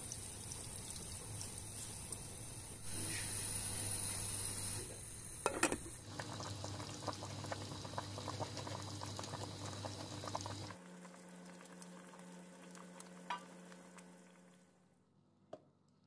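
Stuffed lamb breast simmering in tomato sauce in a pan, bubbling and sizzling. There are a couple of light knocks partway through, the sound changes abruptly a few times, and it fades near the end.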